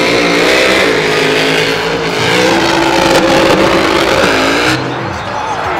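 Monster truck engine revving hard, its pitch rising and falling. The sound drops noticeably quieter about five seconds in.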